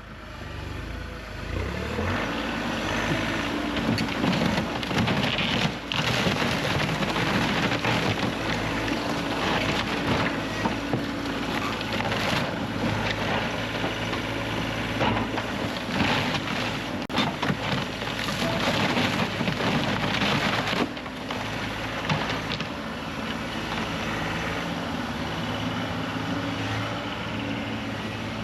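A heavy-equipment engine runs steadily under load while timber cracks and crashes again and again as a shed is torn down.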